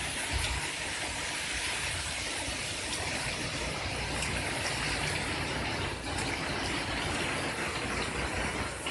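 Hurricane wind and rain, a steady rushing noise with a low rumble underneath.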